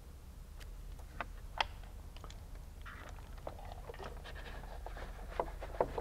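Scattered light clicks and taps of a socket wrench and wiring being handled at a car battery terminal, a few sharp ones about a second in and a cluster near the end, with soft scraping between them over a steady low hum.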